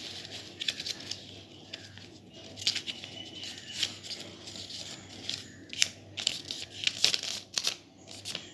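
Sheet of paper being handled, folded and creased by hand into a paper boat: irregular rustling and crinkling with scattered sharp crackles, several close together in the second half.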